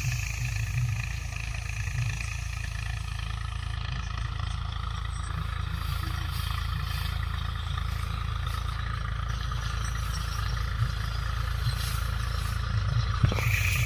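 Tractor-driven groundnut thresher running steadily: a deep engine rumble with a steady whine from the machine above it.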